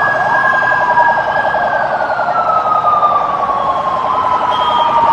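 Several convoy escort sirens sounding at once: long, slow wailing tones that fall and rise over seconds and overlap, with a rapid pulsing siren beneath them.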